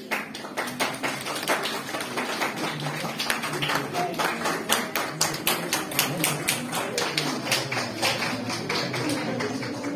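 Audience applauding: many hands clapping at once, starting abruptly, with a few sharper single claps standing out.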